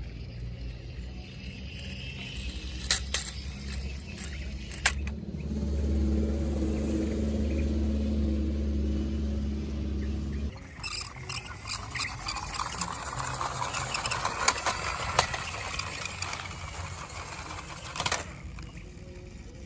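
A motor running with a steady low hum that cuts off abruptly about halfway through, followed by a rough rustling hiss with a few sharp clicks.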